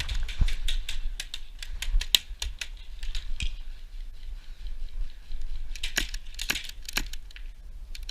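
Airsoft guns firing: a run of sharp, dry clicks at irregular intervals, coming thicker about six to seven seconds in.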